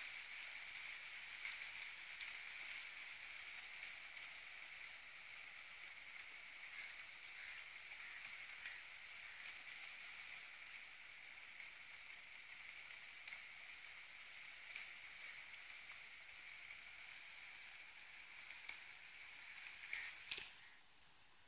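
Faint steady sizzling hiss with scattered small crackles, like water, with a few louder knocks near the end.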